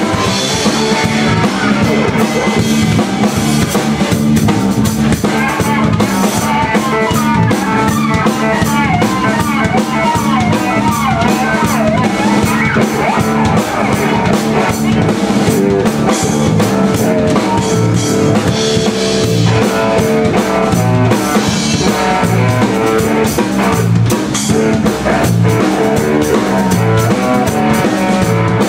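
Live blues-rock band playing: electric guitar lead over bass guitar and a drum kit, with a steady bass line and drum beat throughout.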